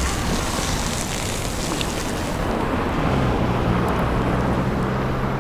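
Wind rushing on the microphone, with a low steady hum coming in about three seconds in.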